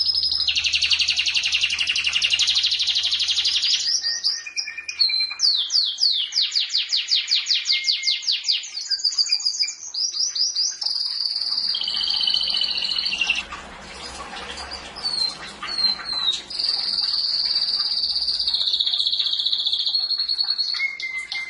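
Domestic canary singing a long continuous song: fast rolling trills and rapid runs of repeated chirps, about seven a second, alternating with long held high whistles. The song softens briefly a little past the middle, then resumes with held notes.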